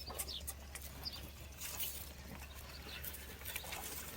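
Birds chirping faintly: scattered short, high, falling chirps, with a few light clicks, over a steady low background hum.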